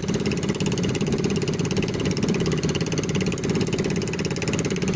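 The engine of a small outrigger fishing boat running steadily at an even speed, with a fast, regular firing beat.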